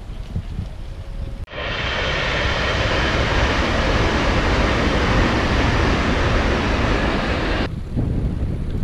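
Electric express train passing at speed on an elevated track: a loud, steady rush of wheels and air that cuts in suddenly about one and a half seconds in and cuts off shortly before the end. Before it, a low wind rumble on the microphone.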